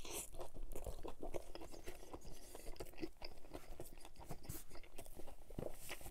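Close-miked biting and chewing of a Burger King chicken sandwich: a bite into the bun just after the start, then steady open-mouthed chewing with many short wet clicks.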